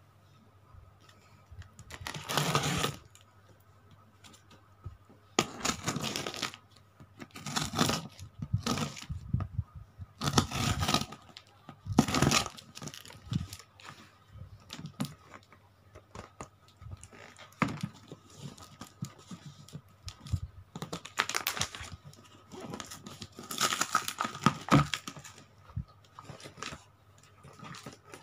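A cardboard parcel being opened: scissors cutting through packing tape and cardboard, with tape tearing and the box rustling, in about eight separate bursts.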